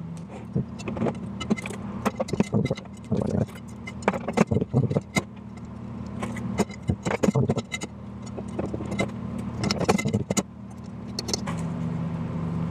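Spokes clicking and clinking against each other, the hub and the rim as they are threaded through while lacing a BMX wheel: many quick irregular metallic clicks over a steady low hum.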